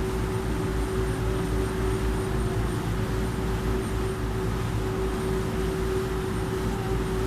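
A harbour ferry's engine running steadily: a low rumble with a constant hum.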